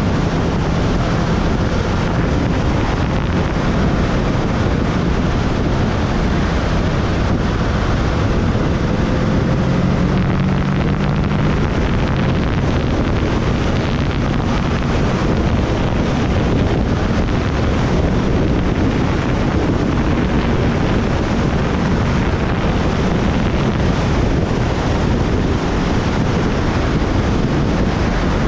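Steady wind rush on the microphone of a moving motorcycle, with the motorcycle's engine running underneath; the engine note comes through more clearly for a few seconds about a third of the way in.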